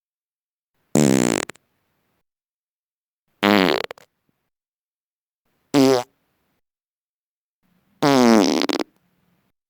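Four separate farts, each under a second long, with a buzzing pitch that wobbles up and down. The third, about six seconds in, is the shortest; the last, about eight seconds in, is the longest.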